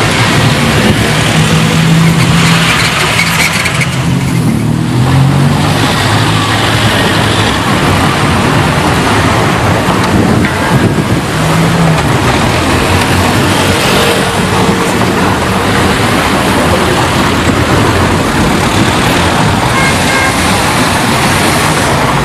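City street traffic: a steady wash of cars and other vehicles passing, with engine hum swelling as vehicles go by, strongest a couple of seconds in and again about halfway.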